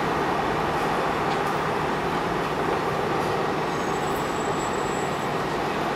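R142A subway train rolling into an elevated station, a steady rumble of wheels on the rails and its running gear as it approaches. A faint high-pitched squeal comes in briefly past the middle.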